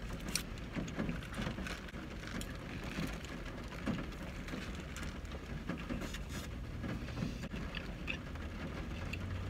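Close-up eating sounds: a burger being bitten and chewed, with its paper wrapper crinkling in irregular small crackles, over a steady low hum.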